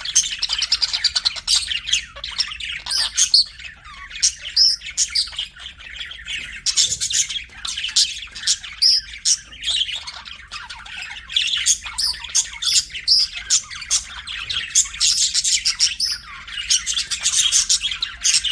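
Budgerigars (budgies) chirping in a busy, unbroken stream of quick, high chirps.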